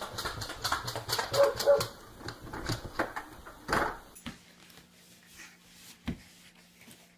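A dog whimpering with short high calls, among scattered clicks and knocks. About four seconds in it goes quieter, leaving a faint steady hum.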